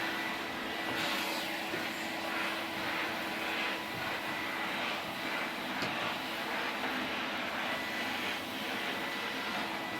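Vacuum cleaner running steadily, its motor giving a constant hum under a rushing of air.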